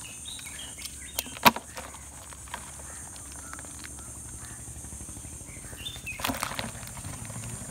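Sharp knock about a second and a half in, and another clatter near the end, of crabs and a net landing in a plastic tub. Behind them runs a steady high-pitched insect buzz with a few faint bird chirps.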